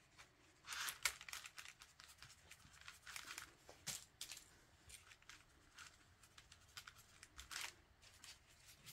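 Faint, irregular scratchy strokes of a paintbrush laying thick acrylic paint onto a fabric-wrapped Styrofoam block, with light rustling of the parchment paper underneath.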